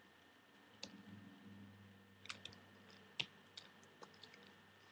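Quiet handling of a folded paper ninja star being pressed flat on a hard notebook: a handful of faint clicks and taps, the sharpest about three seconds in, over near-silent room tone.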